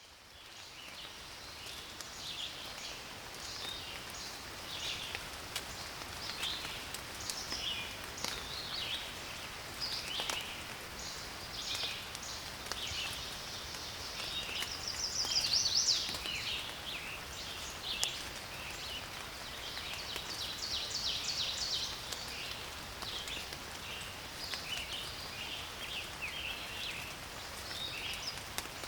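Several birds singing a dense chorus of chirps and trills in a forest, over a soft hiss of rain with scattered drops ticking; the sound fades in at the start.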